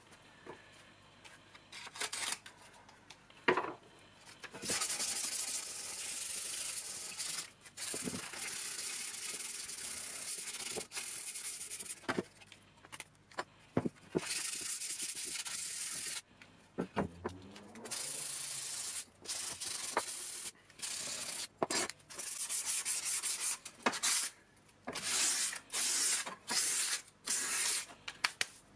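Sandpaper rubbed by hand over the sheet-metal housing of a car heater blower, scuffing it back for painting. The strokes come in long runs of a few seconds each at first, then shorter, quicker ones, with a few sharp knocks as the part is handled.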